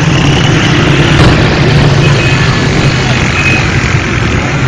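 Motor vehicle running steadily with loud, even road noise.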